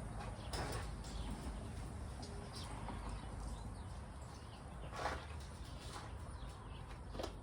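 A few light, scattered knocks, about four spread out, over a steady low hum.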